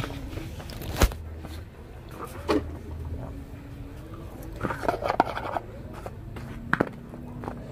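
Light eating sounds: a sharp knock about a second in, then scattered small taps and scrapes of a metal fork on a plastic plate, with chewing of fried getuk (cassava cake).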